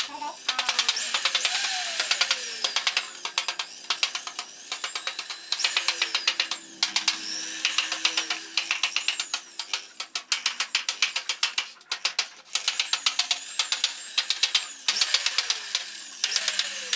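A hand tool working a thin metal sheet: fast rhythmic scraping clicks, several a second, coming in runs broken by short pauses.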